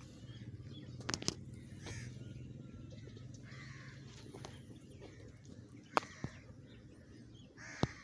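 Birds calling several times, with a few sharp snaps about a second in, about six seconds in and near the end, over a low steady background hum.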